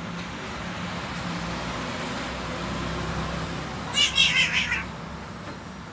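An angry cat lets out a short, high screech about four seconds in, over a steady background noise.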